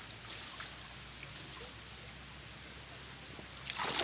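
Faint sloshing of floodwater around a person wading, with a louder burst of splashing near the end.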